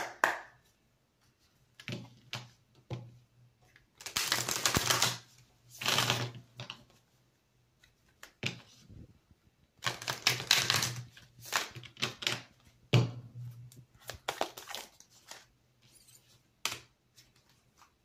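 A deck of oracle cards being riffle-shuffled in several quick fluttering bursts, with single snaps and taps of the cards between them.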